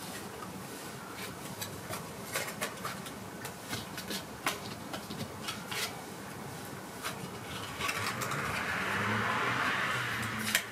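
Playing cards being handled and set in place, with scattered light clicks and taps. Near the end comes a soft rubbing rustle lasting a couple of seconds, then one sharp click.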